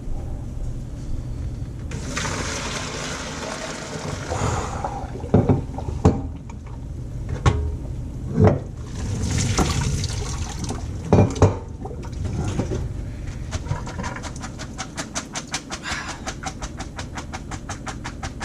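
Pasta water being poured off into a sink, in two rushing pours with metal pot knocks between them, then a run of rapid tapping near the end.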